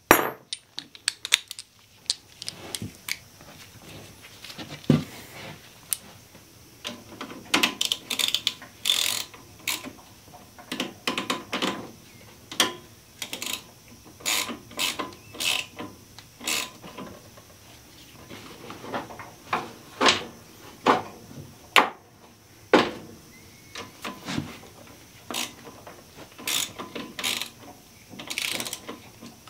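Irregular metal clicks, taps and scrapes of hand work on a riding mower's engine around its choke control, some in quick clusters.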